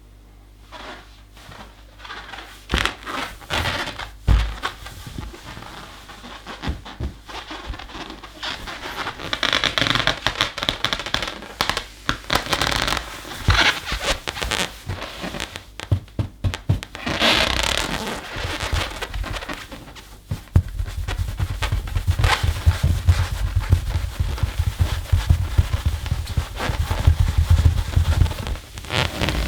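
Rubber balloon rubbed and squeezed by fursuit handpaws with claws: irregular squeaks, scratches and crackles, denser and fuller for the last third.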